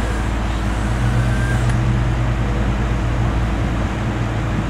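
Engine of a boom lift running steadily at an even, unchanging hum.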